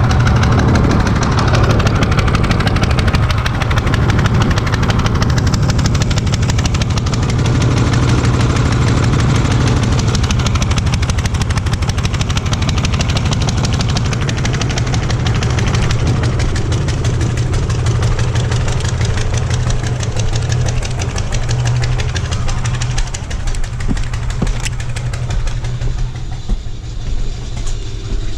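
Small gasoline engine of an old wood chipper running steadily with the choke on, just after a hard start; over the last few seconds it runs lumpier and less even.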